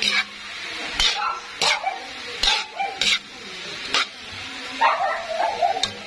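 Bean sprouts and vegetables stir-frying in a wok: a steady sizzle, with a spatula scraping and tossing them about once a second. A small dog barks a few times in the middle and in a quick run of yaps near the end.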